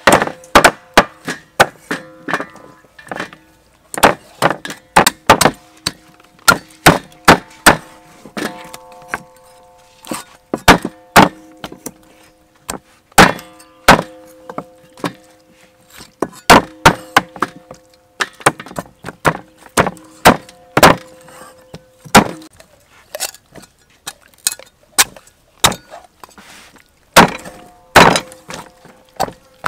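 Steel meat cleavers chopping raw whole chickens into pieces on round wooden chopping blocks: loud sharp chops in quick irregular runs, a ringing note lingering after many of them.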